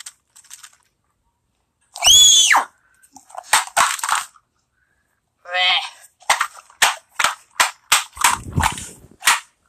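A loud high shriek with falling pitch about two seconds in, then a shorter cry. A rapid run of about ten sharp pops or bangs follows in the last three seconds.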